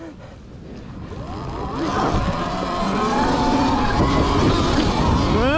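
Sur-Ron X Light Bee electric dirt bike riding off a sand dune and picking up speed on sand: a rising electric-motor whine under a rushing noise, growing steadily louder.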